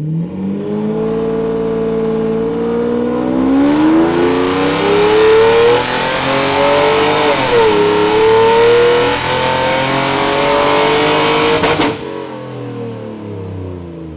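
Mercedes SL600's V12 engine doing a full-throttle dyno pull through its new exhaust, with both cylinder banks joined into one system. The engine note climbs steadily, holds high with a brief dip partway through, then the throttle shuts about twelve seconds in and the revs fall away.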